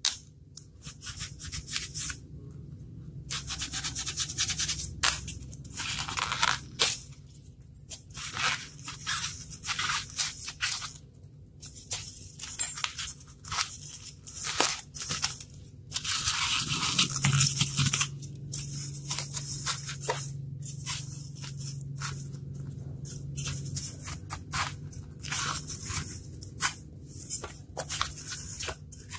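Craft knife cutting and scraping a block of styrofoam, in many short scratchy strokes with brief pauses between them and one longer stroke a little past halfway.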